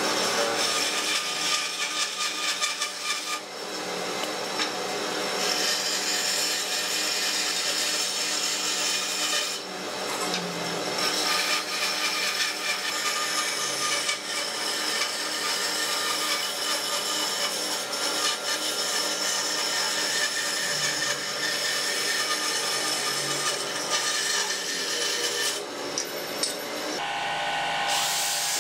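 Bandsaw running and cutting a curve through a softwood block, a steady machine hum under the rasp of the blade in the wood, with a couple of brief dips. The sound changes in the last second or two.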